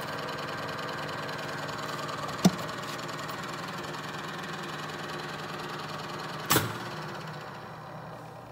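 Electric motor of an Advance orbital riveter running with a steady hum, broken by two sharp knocks, about two and a half and six and a half seconds in. The running sound fades near the end.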